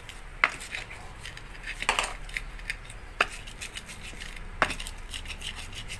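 Stone pestle (ulekan) pounding raw chillies, shallots and garlic in a clay cobek mortar: four sharp knocks about a second and a half apart, with lighter taps between.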